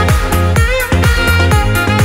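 Background music with a steady beat, about four drum hits a second, and a melody over it.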